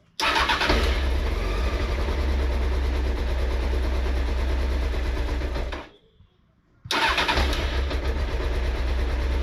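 Honda CBR900RR Fireblade's inline-four engine starting and running steadily, its first start after new coolant hoses were fitted and the system refilled. The sound cuts off abruptly about six seconds in and the engine is running again a second later.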